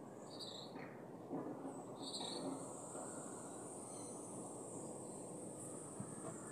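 A steady, high-pitched insect trill that comes in about two seconds in, with two short high chirps before it, over a low background hum.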